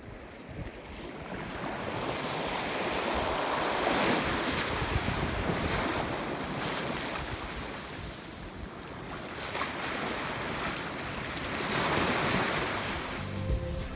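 Ocean surf washing up a sandy beach, swelling and ebbing as the waves come in, with wind buffeting the microphone.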